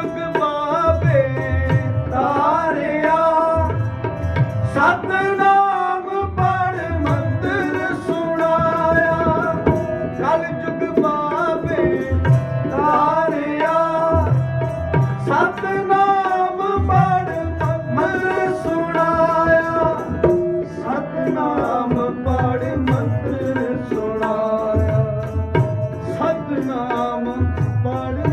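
Sikh kirtan: men singing a Gurbani shabad to harmonium, with the tabla's deep bass strokes coming in clusters under the melody.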